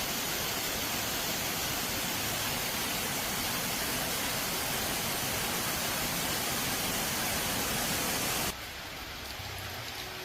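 A steady, loud hiss of even noise that cuts off abruptly about eight and a half seconds in, leaving a much quieter background.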